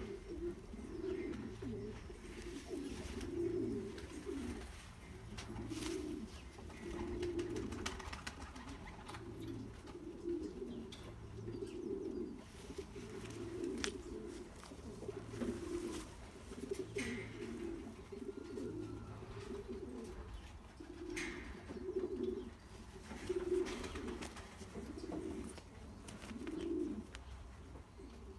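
Racing pigeons cooing, low coos following one another with hardly a break.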